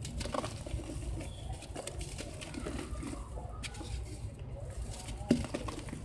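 Soft sand-cement chunks squeezed and crumbled by hand into a bucket of water: wet squishing, crackling and the patter of falling bits, with one sharp knock about five seconds in.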